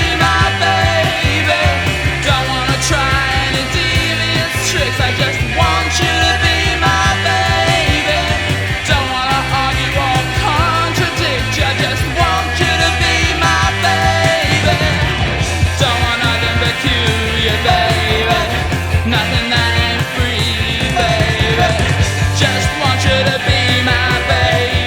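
Loud rock music with a heavy bass line and singing.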